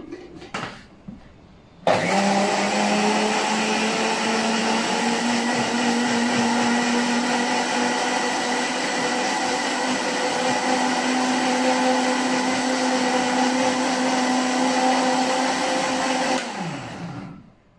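Electric countertop blender switched on about two seconds in, running steadily with a motor hum while blending grated carrot, pineapple and ginger with water into a drink. Near the end it is switched off and winds down, its pitch falling.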